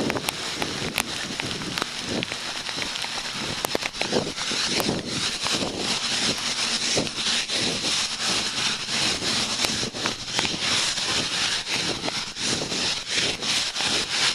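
Heavy rain hissing and crackling on the microphone during a run, with a regular beat of footsteps on wet pavement.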